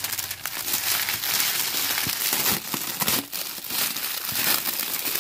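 Clear plastic wrapping being pulled and peeled off a cardboard gift box, crinkling and crackling continuously.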